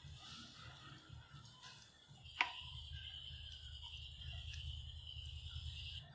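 Thick sambar simmering in a pan, with a low bubbling rumble and a steady high whine. About two and a half seconds in, a metal ladle clinks once against the pan.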